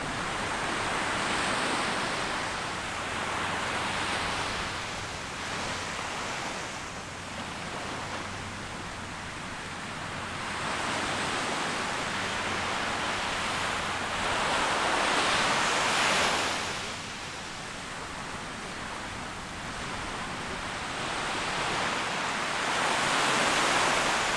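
Small ocean waves breaking and washing up a sandy beach, a steady hiss that swells and fades every several seconds. The loudest surges come about two-thirds of the way through and near the end.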